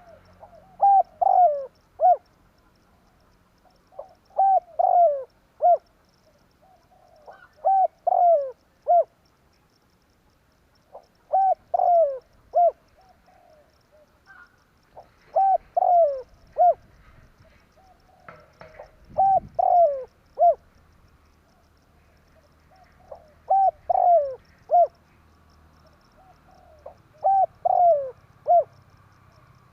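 Spotted dove cooing: a phrase of three or four falling coos, the last set slightly apart, repeated about every four seconds, eight phrases in all.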